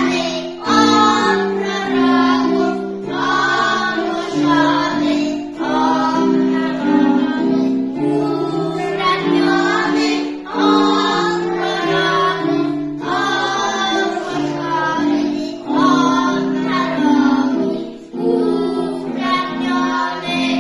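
A group of young children singing a Polish Christmas carol (kolęda) together in unison, line by line with short breaths between phrases, over a musical accompaniment.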